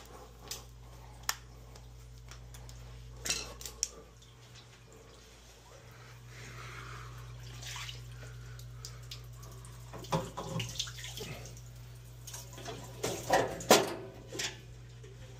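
Water running and dripping from a condensing boiler's PVC condensate drain loop into a cup, with scattered clinks and knocks, loudest near the end, over a steady low hum.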